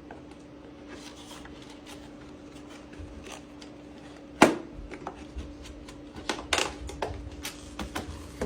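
Clicks and rustles of hands handling an RC crawler's box and packaging, with one sharp click about four and a half seconds in, over a steady low hum.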